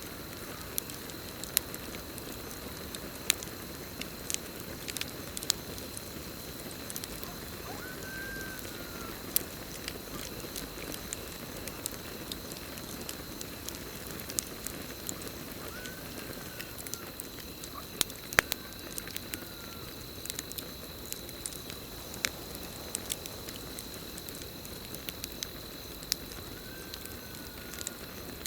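Campfire burning with a steady low rush and frequent sharp crackles and pops of the wood. Under it runs a steady high drone of crickets, and a short rising-then-falling call sounds several times.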